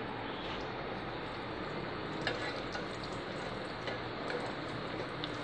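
Moong dal kachoris deep-frying in hot oil over a medium flame, a steady sizzle, with a couple of faint clicks from a slotted spoon moving them in the pan.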